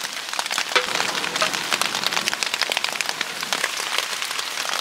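Steady rain pattering, with marinated baby octopus sizzling and crackling on a metal grill grate over hot charcoal.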